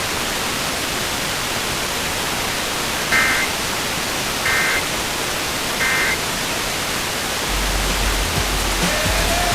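Three short bursts of Emergency Alert System digital data tones, the end-of-message code that closes the alert. Each is a brief warbling buzz, about a second and a half apart, heard over steady radio static hiss. A low hum comes in near the end.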